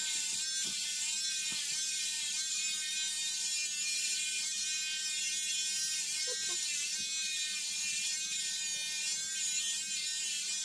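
Electric hair clipper running steadily with a constant buzz, its blades cutting against a closely shaved scalp.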